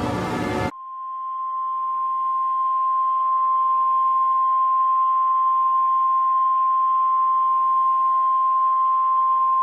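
Music cuts off abruptly under a second in, and an emergency alert tone takes over: a single unbroken tone, the 1050 Hz NOAA Weather Radio warning alarm, over a faint radio hiss. It swells up over the first couple of seconds and then holds steady.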